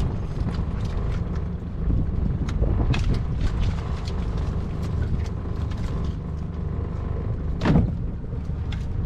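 Small boat's outboard motor running steadily, with scattered knocks and clatter; the loudest knock comes about three-quarters of the way through.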